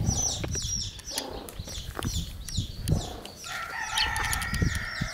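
Rooster crowing, one long held call starting about three and a half seconds in, over rapid high peeping of baby chicks.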